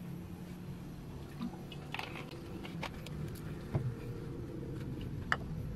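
Cooking oil poured from a plastic bottle into an aluminium wok and starting to heat, with a few scattered small clicks and pops over a low steady hum.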